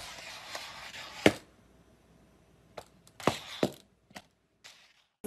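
A handful of short, sharp taps and clicks, the loudest about a second in, over a soft rustle that stops shortly after: a kitten's paws and claws on a hard wooden floor.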